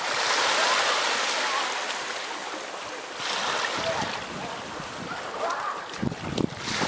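Steady hiss of wind and sea water around a wader. About six seconds in come a few sudden splashes as a dog in a life jacket scrambles up onto a surfboard.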